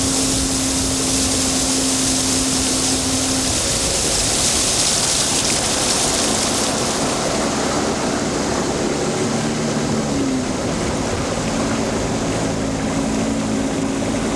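Small boat's motor running steadily under way, its pitch shifting a little about two thirds of the way through, with a constant rush of wind and water over it.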